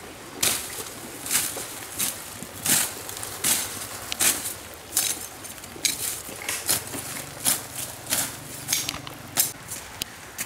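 Machete slashing through grass and weeds, a steady run of sharp cutting strokes, about one to two a second.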